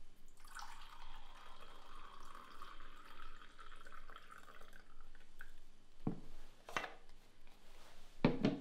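Liquid poured from a thermos jug into a mug for about four and a half seconds, followed by a few sharp knocks, the loudest near the end.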